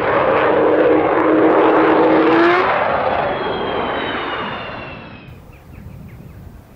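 Avro Vulcan XH558's four Rolls-Royce Olympus turbojets at full power in a steep climb, giving the Vulcan howl: a loud howling wail over the jet roar. The sound falls away sharply about five seconds in.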